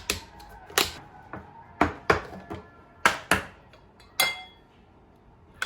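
Kitchenware being handled: a series of about eight sharp clinks and knocks of dishes or utensils over four seconds, one about four seconds in ringing briefly.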